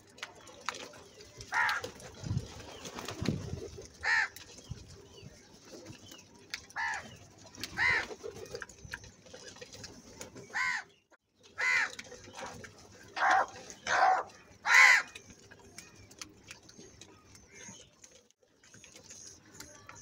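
House crows cawing at a feeding flock: about nine short, harsh caws, some singly and some in quick pairs, loudest about fifteen seconds in. A couple of low, muffled sounds come about two and three seconds in.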